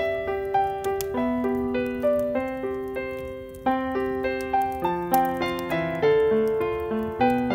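Background piano music: a slow melody of single notes and chords, each struck note fading away before the next.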